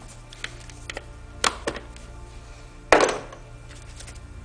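Scattered sharp clicks and taps of a hand tool working the band clamp on the air intake as it is loosened, the loudest a single clack about three seconds in, over a steady low hum.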